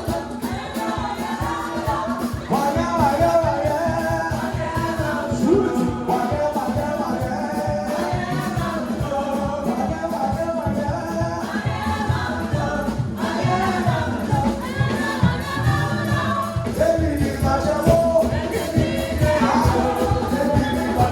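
A group of singers performing gospel music in harmony, with band accompaniment over a steady beat.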